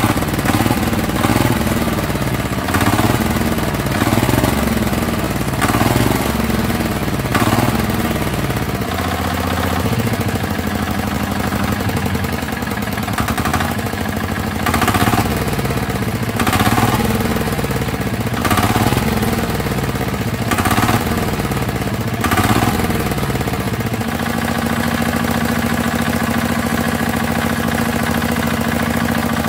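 A walk-behind tractor's single-cylinder engine running, its revs repeatedly rising and falling about every second and a half, then settling about 24 seconds in to a steady idle.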